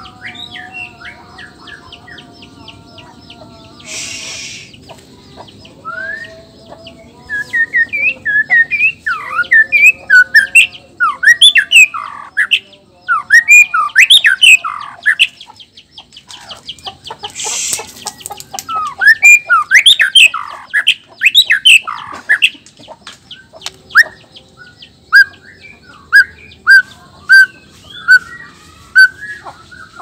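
Male black-tailed white-rumped shama (Nias murai batu) singing a loud, varied song of rapid swooping whistles and trills, with two long bursts of song. Two short harsh hissing notes break in, and the song ends with a string of evenly spaced repeated notes, about two a second.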